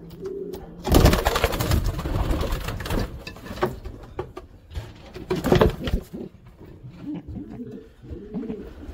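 Racing pigeons cooing in a loft, with two loud spells of rustling noise, the longer starting about a second in and the shorter just past the middle.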